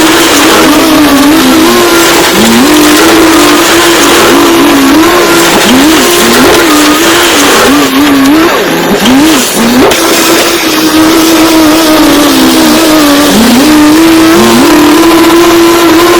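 Heavy construction machine running hard, a strong engine whine that repeatedly dips in pitch and springs back as the load changes, busiest around the middle.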